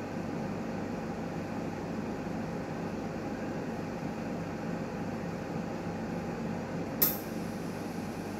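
Newmed Kronos S benchtop steam autoclave running a cycle: a steady mechanical hum with faint steady tones, and one short, sharp click about seven seconds in.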